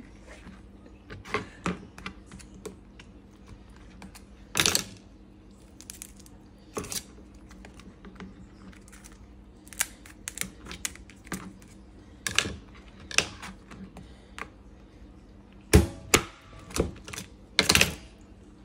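Kitchen scissors snipping through a live blue crab's shell and legs, and the shell cracking as it is broken apart by hand: irregular sharp clicks and snaps, the loudest ones in the second half.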